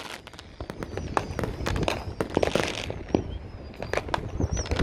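Consumer fireworks going off all around: irregular sharp pops, bangs and crackles of bursting shells. A hissing rush comes about two and a half seconds in, and a thin, wavering high whistle runs through the second half.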